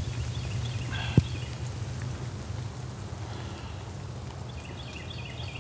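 Steady rain with three runs of short, repeated bird-call notes, and one sharp tap about a second in.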